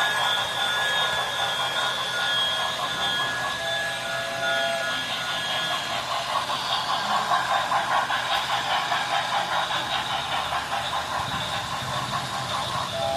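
Train sound from a model railway. Steady high whistle-like tones run through the first half, then a fast rhythmic clatter or chuffing takes over from about halfway.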